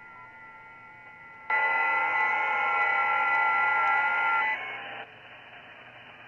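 FT8 digital-mode signals received on the 20 m band through an Icom IC-7300's speaker: several steady tones over hiss. About a second and a half in, the radio's AGC is switched off and the receiver audio jumps suddenly much louder, then falls back in two steps near the five-second mark.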